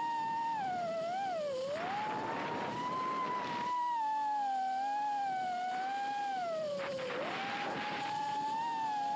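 Small FPV quadcopter's brushless motors whining, the pitch sliding up and down with the throttle. Two dips in pitch, about a second and a half in and again near seven seconds, are each followed by a few seconds of rushing propeller and wind noise.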